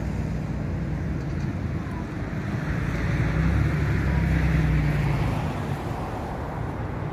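Škoda ForCity Smart Artic electric tram running slowly on its track, a steady low hum that swells about three seconds in and eases off near the end.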